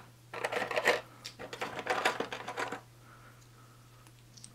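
Small plastic game miniatures clattering and rattling against each other as a hand rummages through them in a box tray, in two bursts over the first three seconds, then stopping.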